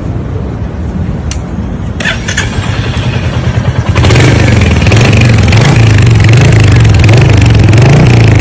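Royal Enfield Hunter 350's single-cylinder engine and exhaust running, then revved up much louder from about four seconds in and held there with a pulsing throb.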